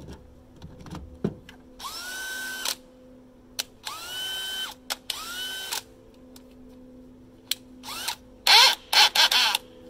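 DeWALT DCD999 20V brushless hammer drill run with no load in short trigger pulls: the motor whines up to speed and holds for under a second, three times, then gives louder, choppier bursts near the end. A couple of sharp clicks come first.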